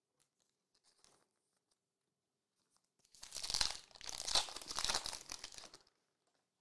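Foil wrapper of a 2021-22 Revolution basketball trading-card pack being torn open and crinkled in the hands. The tearing and crinkling start about three seconds in and go on for about three seconds.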